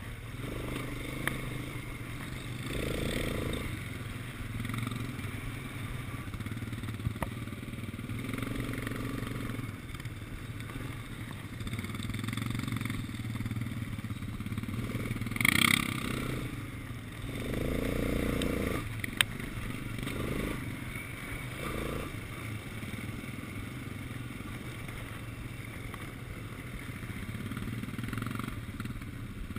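Quad bike engine running as it is ridden, its note rising and falling several times with the throttle. A brief loud noise comes about halfway through, and there are a couple of sharp clicks.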